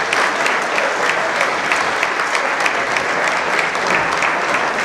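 An audience applauding, many hands clapping at once at a steady level.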